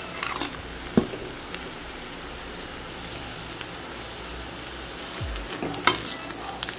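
A pan of rice and sautéed capsicum sizzling faintly and steadily, with a sharp knock about a second in. Near the end a spoon starts stirring the rice through the vegetables, scraping and knocking against the metal pan.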